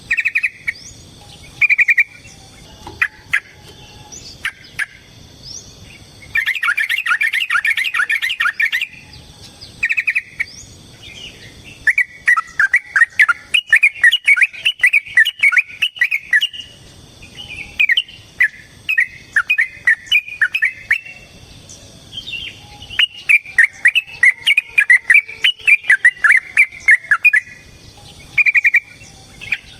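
Yellow-vented bulbul (trucukan) singing: short bubbly phrases broken by three long, rapid warbling runs lasting a few seconds each.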